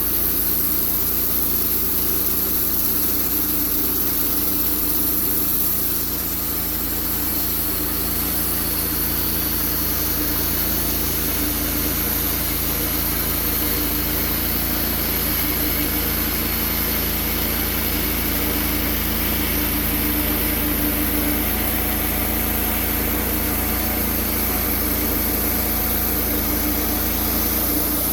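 Woodmizer LT15 Go sawmill's engine running steadily as milling resumes on a fresh blade.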